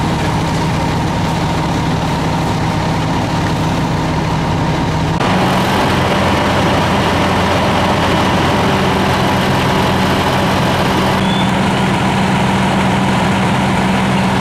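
Heavy diesel engines of fire engines idling steadily, a loud low running sound with a steady hum. About five seconds in, the sound changes abruptly to a louder, fuller engine close by.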